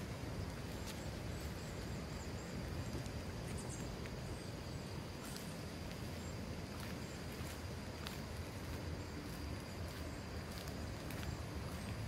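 Outdoor ambience: a steady high-pitched insect trill, with scattered short clicks of footsteps on asphalt and a low rumble of wind and handling on the microphone.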